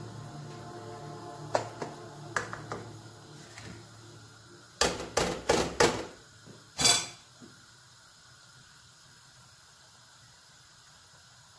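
A plastic spatula scraping and clicking in a non-stick frying pan of boiling risotto rice, then four sharp knocks in quick succession and one more about a second later as the spatula is knocked against the pan and set down on a plate. A faint hiss of boiling is left, and guitar music fades out at the start.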